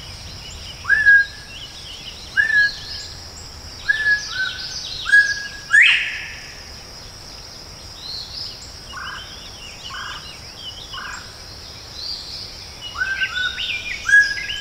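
Quail whistle calls traded with a person's mouth-whistled imitation: short clear whistled notes repeated every second or so, with one loud sharply rising whistle about six seconds in and a quicker cluster of notes near the end. A steady high insect drone and faint chirps of other small birds run underneath.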